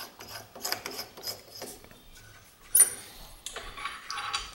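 Drill chuck on a benchtop milling machine being worked by hand to swap drill bits: a run of small metal clicks and clinks, with one louder, ringing clink a little under three seconds in.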